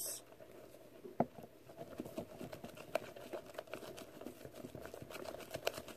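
A spatula stirring a foamy mixture of glue and foaming hand soap in a glass bowl, giving faint quick clicks and wet crackling that get busier toward the end, with one sharper click about a second in.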